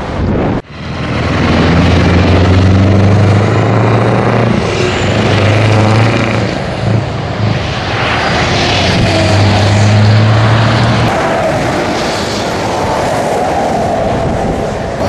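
Scania V8 diesel truck engine running with a deep, steady drone. The drone gives way to a broad road and wind rush about eleven seconds in. There is a brief dropout just under a second in.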